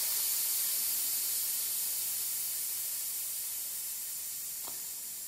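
Air hissing out of a bicycle tyre's car-type (Schrader) valve as the tyre is let down from about 4.5 bar. The hiss fades steadily as the pressure drops.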